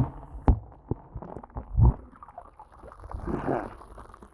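Muffled gurgling and sloshing of creek water heard through a phone's microphone dipped into the water, with two heavy dull thumps in the first two seconds.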